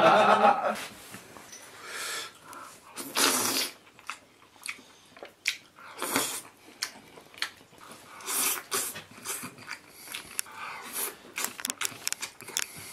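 Men eating with chopsticks: slurping, sucking on chopsticks, chewing and lip-smacking in scattered short bursts, after a brief laugh at the start.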